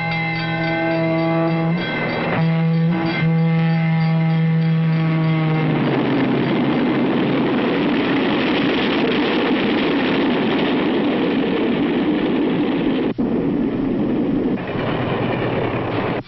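Train horn sounding a long chord, broken briefly twice, that cuts off about six seconds in. After it, the train passing at speed makes a loud, steady rushing roar.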